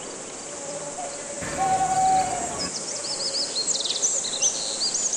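Birds chirping in quick, high, arching calls with a short trill, over a steady outdoor background hiss; the chirping starts about halfway through.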